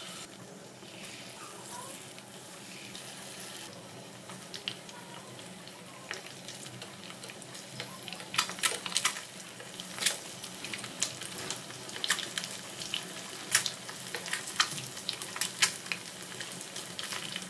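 Batter-coated boiled egg pieces deep-frying in hot oil in a pan: a steady sizzle, with sharp crackling pops that come more often from about halfway through as more pieces go in.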